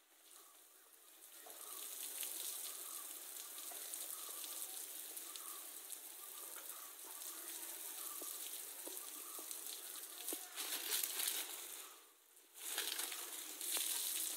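Water spraying down and spattering over a bull Asian elephant's head and back to cool it during musth, a steady hiss that breaks off for about half a second near the twelve-second mark and then resumes.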